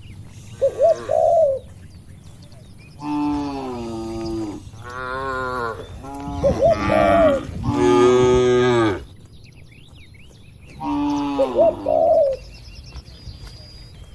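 Cattle mooing, several long drawn-out calls one after another, with a dove cooing briefly three times in between.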